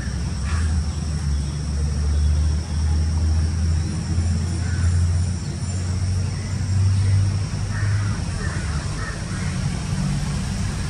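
Outdoor background dominated by a steady low engine-like rumble that swells and eases, with a few faint high chirps now and then.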